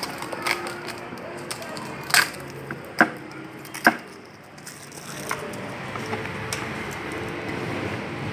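Protective backing being peeled off a cut plastic sign letter, a crackling tear with three sharp snaps about two, three and four seconds in.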